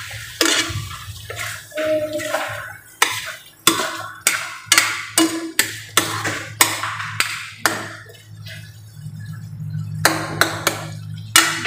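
Metal spatula knocking and scraping against a large metal wok while stirring chicken in a thick, reduced coconut-milk sauce: irregular sharp clacks about one or two a second, easing off for a couple of seconds past the middle, over a steady low hum.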